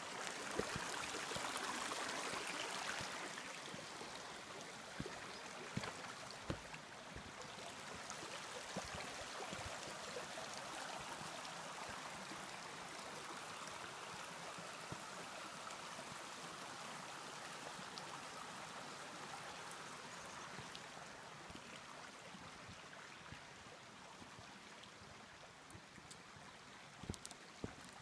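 Shallow rocky creek rushing and trickling over river stones, loudest in the first few seconds and slowly fading, with a few light knocks along the way.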